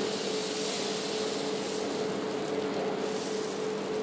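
Steady kitchen hum and hiss with a constant tone throughout, from the lit gas range under the dosa tawa.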